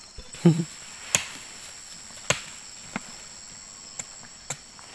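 Steady high drone of forest insects, broken by a dull thump about half a second in and then a string of sharp clicks and knocks, roughly one a second.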